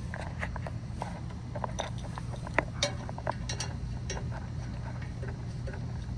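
Small scattered clicks and clinks of a brass refrigerant pressure transducer being threaded by hand onto a swivel-tee access fitting, over a steady low hum.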